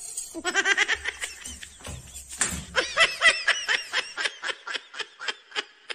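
A person laughing in a long run of quick, high, repeated snickering bursts, about five a second, that grows fainter toward the end.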